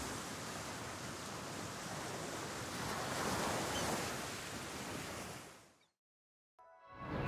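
Sea waves washing and surging, swelling a little midway and fading out about five and a half seconds in.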